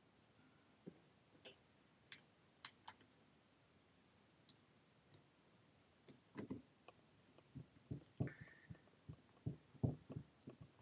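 Faint, scattered clicks and light knocks of hands working on a hand power tool's parts and screws, with a denser run of knocks in the second half and one brief squeak about eight seconds in.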